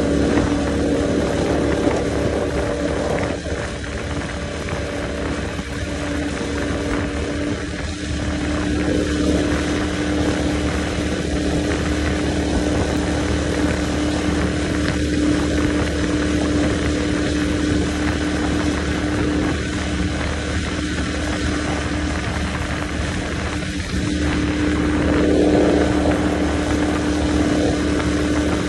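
Outboard motor running steadily at high speed as the boat crosses open water, a continuous engine drone over the rush of wind and water. It gets a little louder near the end.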